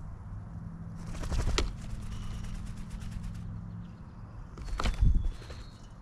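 Birds at a feeder close to the microphone: two loud bursts of flapping wings, about a second in and near the end, with a quick run of light ticks between them and a few faint chirps.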